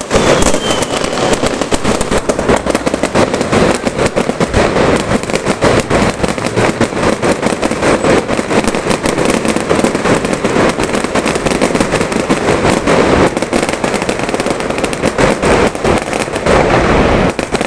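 Fireworks going off in a dense, unbroken barrage of crackling bursts and bangs.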